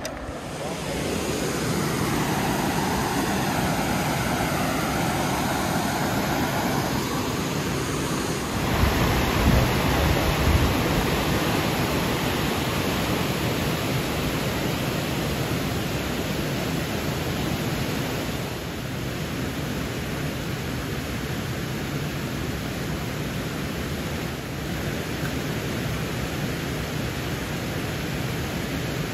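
Steady rush of flowing river water, with wind buffeting the microphone briefly about nine to eleven seconds in.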